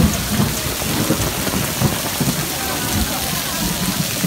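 Heavy rain pouring down, with water running off a roof edge and splashing onto stone paving. Dense, even rain noise with irregular low thuds several times a second.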